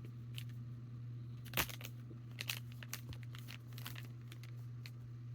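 Snack bag crinkling in the hands with irregular sharp crackles, the loudest about a second and a half in, over a steady low hum.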